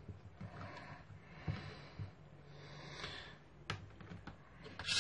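Faint handling noises from hands lifting and moving a strip of black modelling clay on a work board: a few light clicks and taps, with a short rustle near the end.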